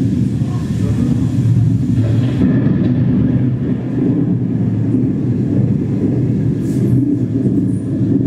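Low, steady rumbling drone from the routine's music track, dense and without clear pitch changes.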